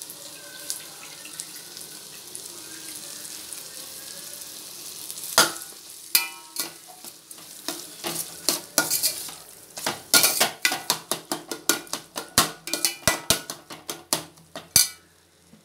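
Onion-tomato masala sizzling in a stainless steel pot. From about five seconds in, a metal slotted spatula stirs it in quick strokes, clicking and scraping against the pot, then stops just before the end.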